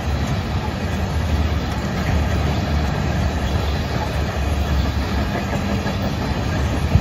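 Freight train tank cars rolling past, a steady rumble of steel wheels on the rails.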